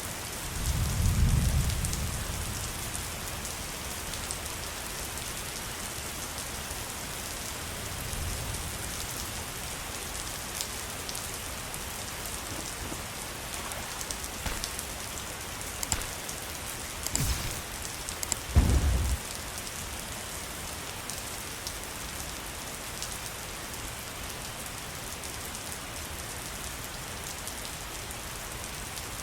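Waterfall: a steady rushing hiss of falling water, with a few short low rumbles, one about a second in and two close together past the middle.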